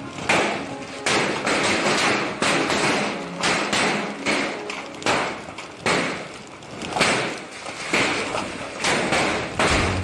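Heavy hailstorm: hailstones pelting down, with a rushing hiss and a dense, irregular run of thuds and taps as the stones strike.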